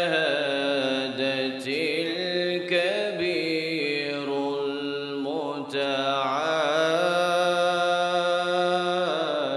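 A man reciting the Quran in melodic tajweed style through microphones, drawing out long, ornamented notes, with a brief break a little past halfway.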